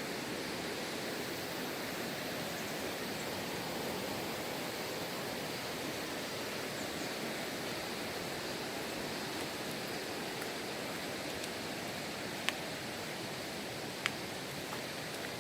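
Steady rushing of a mountain stream flowing over rocks, with two brief sharp clicks near the end.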